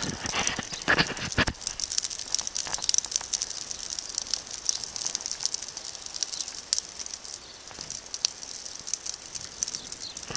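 Wood fire crackling in an open stone fire pit under a metal grill, a dense run of irregular pops and snaps, strongest in the first second or two, over a steady high hiss.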